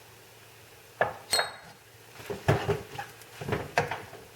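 Utensil clanking and scraping against a pan as pasta is stir-fried, an irregular run of knocks starting about a second in, one of them with a short metallic ring.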